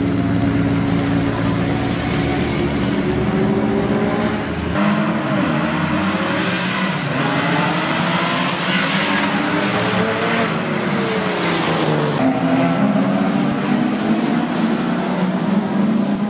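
Several historic racing cars' engines revving and passing by on a circuit, their overlapping notes rising and falling. The sound changes abruptly about five seconds in, where the deep rumble drops away and higher engine notes take over.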